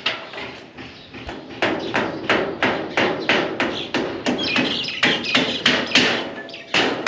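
Steady hammering on wood during carpentry work, about three even blows a second.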